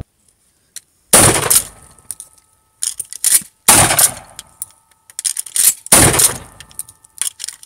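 Three 12-gauge shotgun blasts, about two and a half seconds apart, each with short echoing decay. Between them come quick clicks and clacks as the action is cycled.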